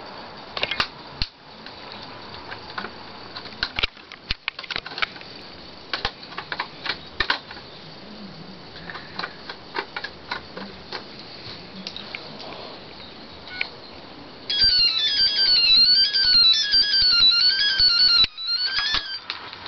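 Scattered light clicks and taps, then, about fourteen seconds in, a phone ringtone starts: a loud, repeating melody of quick rising and falling high notes, with a short break before it plays once more.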